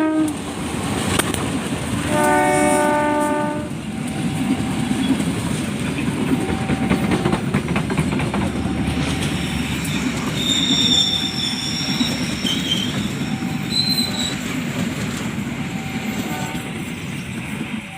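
A passing train sounds its horn in one blast of about a second and a half, then its cars rumble and clatter past over the rail joints. Brief high wheel squeals come partway through.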